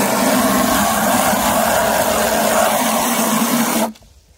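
Water spraying from a garden hose nozzle into an empty plastic bucket, loud and steady, then cut off suddenly near the end when the water is shut off.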